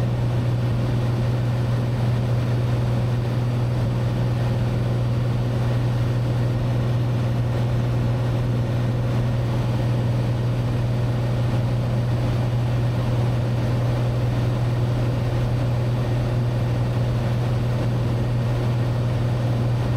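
Cessna 182T's six-cylinder Lycoming IO-540 engine and propeller running steadily in flight, a constant low drone.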